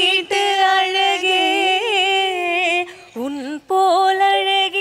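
A woman singing unaccompanied, a Tamil film song in Carnatic style, with long held notes and ornamented turns. A short lower phrase comes after a brief dip about three seconds in.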